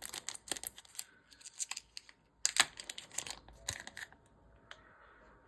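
A small package of scented putty being unwrapped and opened by hand: rustling and crinkling with a run of clicks and snaps, the sharpest about two and a half seconds in.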